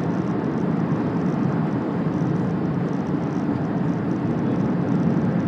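Steady rumble of an Airbus A380's engines and rushing air on its landing approach.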